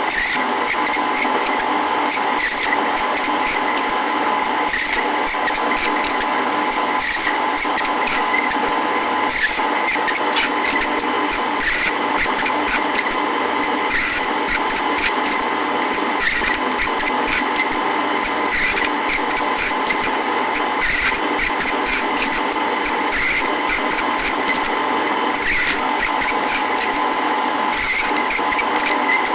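Metal lathe running at low spindle speed while a cutting tool turns down a welded pulley to fit a taper: a steady motor and gear whine with the cutting noise, and a faint regular beat about every two seconds.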